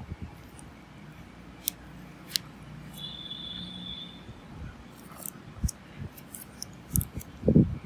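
Small handling noises: a few sharp clicks and several low thumps, the loudest near the end, over a low steady background hum, with a brief high whistle-like tone about three seconds in.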